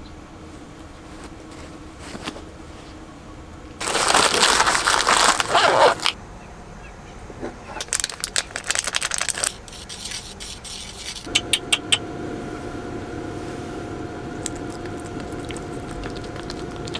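Handling noises: a loud rustle, then quick crinkling clicks as a paper medicine packet is torn open. Partway through, a steady hum with a faint whine comes on and keeps going.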